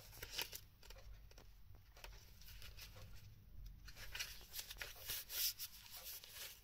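Faint rustling and light ticks of paper and card being handled: the oracle card and a paperback guidebook picked up and its pages leafed through, a little louder about five seconds in.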